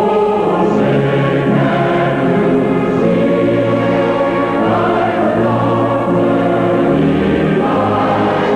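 Choir singing slow, held chords over an orchestra.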